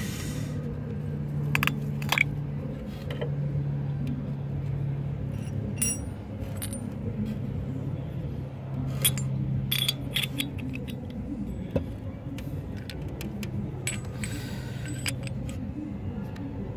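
Scattered metallic clinks and clicks of a steel tubular spark plug wrench being handled and fitted over a motorcycle's spark plug, over a steady low hum.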